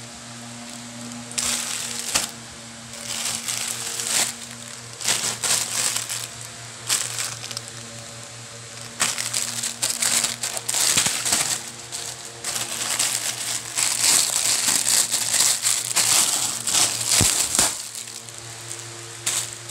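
Plastic courier mailer bag crinkling and rustling in irregular bursts as it is handled and opened, busiest through the second half.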